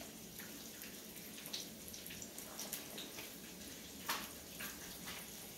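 Food frying faintly in oil on the stove: a low hiss with scattered small crackles, and one slightly louder click about four seconds in.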